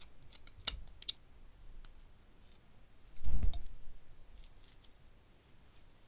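Light sharp clicks of scissors being handled, twice within the first second and faintly again later, with a short dull thump a little over three seconds in that is the loudest sound.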